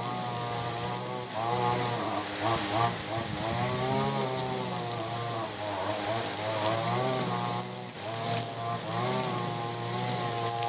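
Ogawa 26cc brush cutter with a nylon trimmer head cutting thick, long grass. The engine's pitch repeatedly dips as the spinning line bites into the grass and picks up again, with a high hiss from the line.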